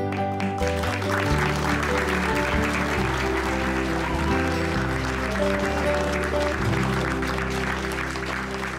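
A room of guests applauding, a dense patter of clapping that builds about half a second in and fades near the end, over background music with sustained notes.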